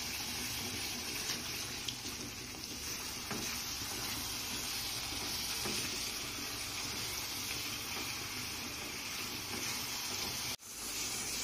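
Onion-tomato masala with ground spices sizzling steadily in hot ghee in a frying pan as it is stirred, the spices being sautéed. The sizzle cuts out abruptly for a moment near the end.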